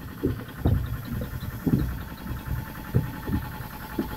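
Irrigation pump set running steadily with an even mechanical hum, under irregular low thumps.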